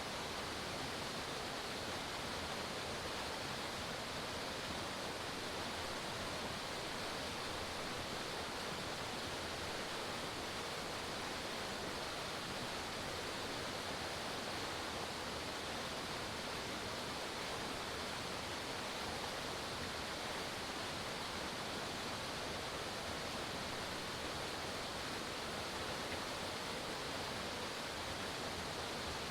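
Forest waterfall: water falling and splashing in a steady, even rush.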